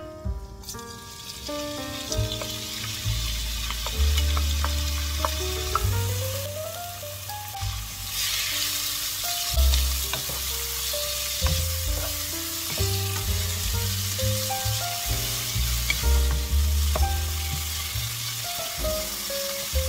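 Chopped kimchi sizzling in hot oil in a wok and stirred with a wooden spatula. The sizzle starts as the kimchi goes in about a second in and grows louder about eight seconds in, over background music with a bass line.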